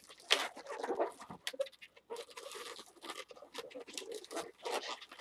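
Inflated latex modelling balloons squeaking and rubbing against each other as they are twisted and locked together, in a run of irregular squeaks and crinkly scrapes.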